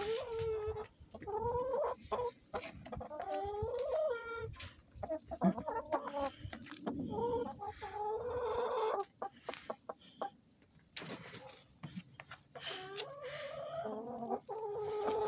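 A flock of brown laying hens clucking, with many calls following and overlapping one another and a short lull about two-thirds of the way through.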